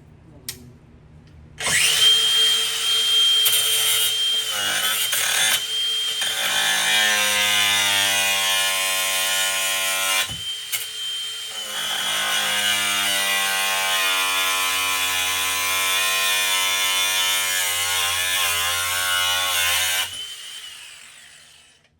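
Handheld electric power tool running in two long runs, its steady high whine dropping and wavering as it works into the material. It stops briefly about ten seconds in and winds down near the end.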